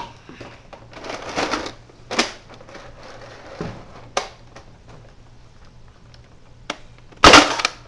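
Nerf Mega Centurion blaster fired once near the end: a single sharp, loud pop. Before it, softer clicks and rustles of the plastic blaster being handled.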